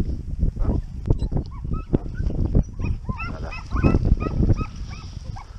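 A pack of hounds giving tongue: many short, overlapping yelping cries, thickest from about a second and a half in, over a steady low rumble.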